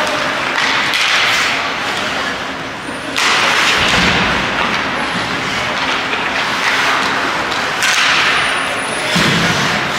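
Ice hockey game noise in a rink: a steady hiss of skates on the ice, turning abruptly louder about three seconds in and again near eight seconds.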